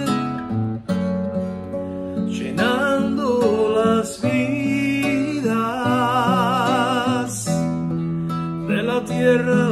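A man singing a slow Spanish worship song, his voice wavering on long held notes, over chords played on a nylon-string classical guitar.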